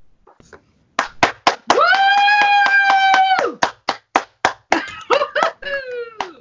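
Hand clapping, about four claps a second, starting about a second in. Over the claps a voice holds one long high cheering note for nearly two seconds, followed by shorter whoops.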